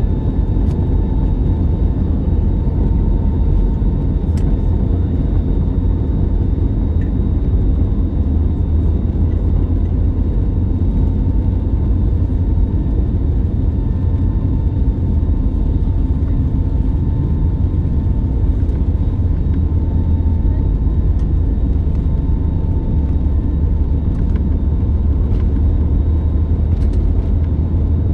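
Cabin sound of an Airbus A320neo with CFM LEAP-1A engines at high thrust during takeoff: a loud, steady, deep rumble of engines and airflow, with a thin steady whine above it.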